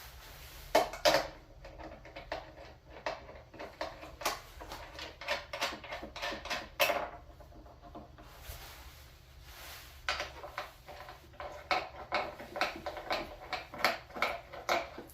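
Wrench and metal fittings clinking and knocking irregularly while shipping bolts on a lathe are worked loose. Two heavier knocks come about a second in, another near the middle, and the clicks come faster over the last few seconds.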